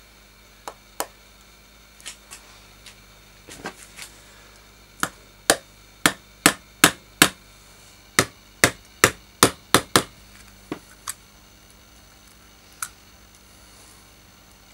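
Small hammer tapping the hinge pin into a petrol lighter's metal case: a dozen sharp metal-on-metal taps in two runs of six, about two or three a second. Lighter ticks come before and after the runs.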